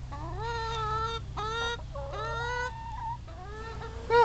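Domestic hens calling: three drawn-out calls that rise and then hold level in the first three seconds, then shorter calls, and one sharp, loud call near the end.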